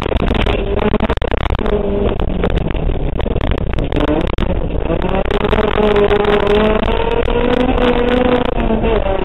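Toyota Corolla Twin Cam's twin-cam four-cylinder engine, heard from inside the cabin, revving hard under load; its note climbs from about four seconds in, holds high, and drops near the end. Short clicks and rattles, typical of gravel striking the underside on a loose surface, run over it.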